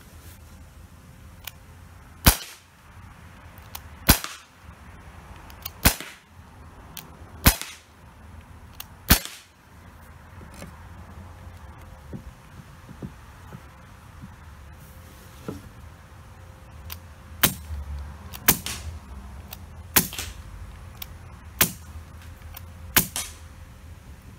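Daisy Powerline 415 CO2 BB pistol fired five times at a steady pace, each shot a sharp crack. Then come a few small handling clicks as a 3D-printed silencer is fitted, followed by five more shots that are clearly quieter.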